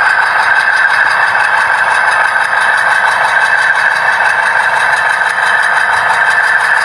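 Model diesel locomotive running steadily along the layout track, a loud, even mechanical running noise without let-up.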